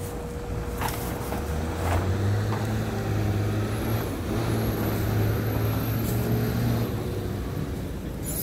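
A motor vehicle's engine running at a steady low pitch, growing louder about two seconds in and dropping back about seven seconds in, over constant outdoor background noise.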